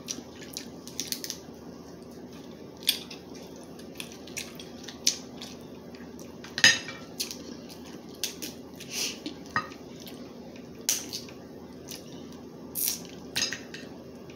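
Crab legs being eaten: irregular sharp cracks, clicks and clatter of shells and utensils, the loudest crack about two-thirds of the way in, over a steady low hum.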